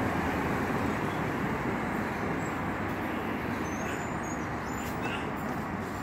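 Steady street traffic noise around a battery-electric city bus at a stop. The bus itself runs very quietly, with no engine note standing out, so the sound is mostly the even rush of passing cars.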